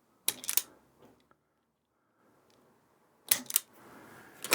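Sharp clicks of small hand tools and parts being handled while working on a tractor wiring harness. They come in two short clusters about three seconds apart, with one more click at the end.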